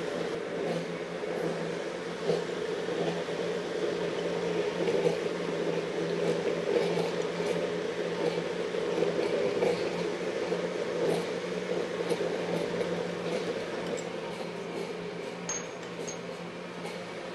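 Walita countertop blender running steadily, puréeing cooked carrot soup into a smooth cream, with an even motor hum.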